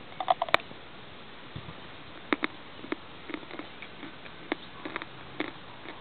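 A person biting into food and chewing it close to the microphone: a quick cluster of clicks at the bite, then scattered mouth clicks and smacks over a steady faint hiss.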